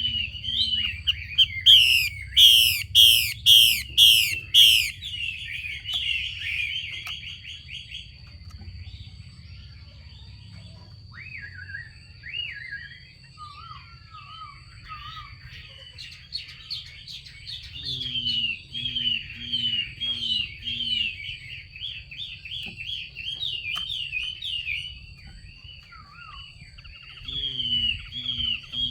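Female Chinese hwamei giving its rapid, repeated 'xùy' calls, the call keepers play to rouse a male to sing. There is a loud burst of fast notes about two seconds in, then softer, scattered phrases, then another long run of quick repeated notes from about sixteen seconds. A faint steady high whine sits under it throughout.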